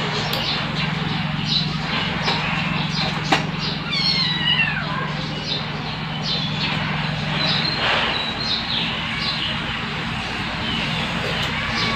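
Kittens mewing: many short, high-pitched calls, some falling in pitch, over a steady low hum that stops about two-thirds of the way through.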